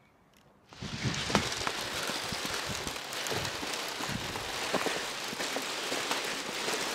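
Footsteps on the wooden planks of a suspension bridge under a steady rustling hiss of the jostled microphone, with many small irregular knocks. It starts suddenly about a second in.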